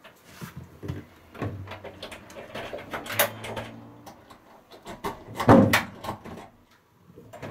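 Key being worked in the front-door lock: scattered clicks, rattles and knocks from the lock and door. A louder drawn-out sound comes about two-thirds of the way through.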